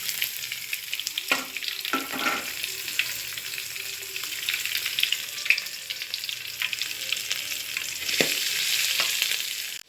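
Chopped onion, garlic, ginger and curry leaves sizzling and crackling in hot oil in a frying pan, with a few knocks as the pan is worked.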